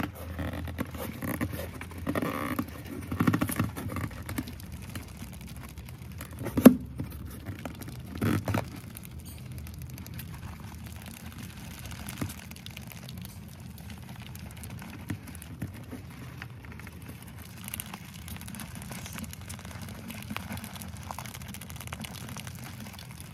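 Cardboard lid and plastic bucket being handled, with a sharp knock about seven seconds in and a second one soon after. Then many wild mice scrabble and patter faintly on the plastic inside the bucket trap.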